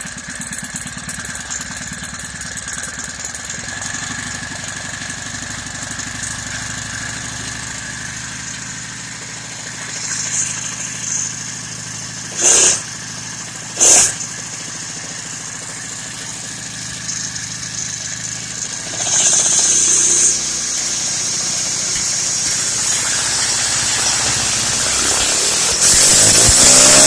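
Small four-stroke motorized-bike engine idling steadily while its idle is being adjusted, with two short sharp bursts in the middle. Near the end it revs up and gets louder.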